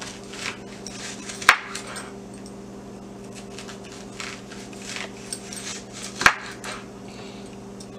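Chef's knife slicing through a white onion into rings on a wooden cutting board. Softer cutting strokes are broken by two sharp knocks of the blade on the board, one about a second and a half in and one just past six seconds. A steady low hum runs underneath.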